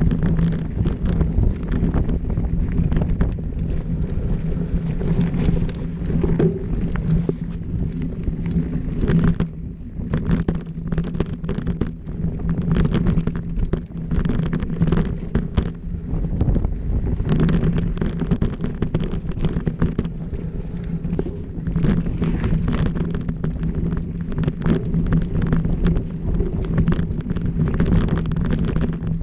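Mountain bike riding fast down a dirt singletrack: wind on the camera's microphone over the rolling of knobby tyres on dirt. Constant rattling knocks come from the bike as it runs over bumps and roots.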